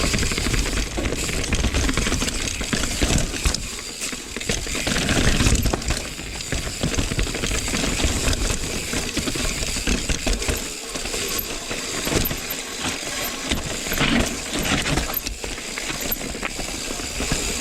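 Mountain bike, a Rocky Mountain Slayer, riding down a rough trail: tyres rumbling over dirt and rock, the frame and chain clattering over bumps, with wind rushing on the microphone.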